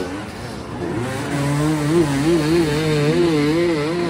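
Hard enduro motorcycle engine revving up and down in quick, uneven throttle blips, easing off briefly near the start and then pulling hard again.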